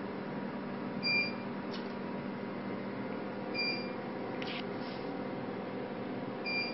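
Energist Ultra IPL/VPL machine giving three short electronic beeps about two and a half to three seconds apart, each one marking a light pulse from the handpiece, with short clicks between them. Under them runs the machine's steady hum.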